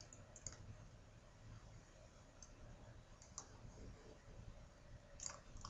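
Near silence: quiet room tone with a few faint, brief clicks.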